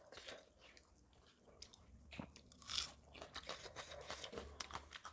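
People chewing food close to the microphone: irregular crunching bites and mouth clicks, with one louder crunch about three seconds in.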